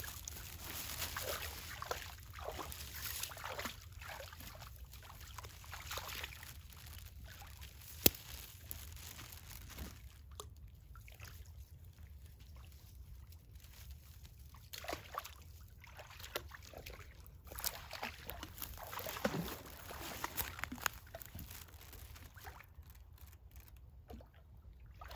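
A dog wading in a shallow creek, water sloshing and splashing around its legs in scattered bursts, with a quieter stretch midway. A single sharp click about eight seconds in.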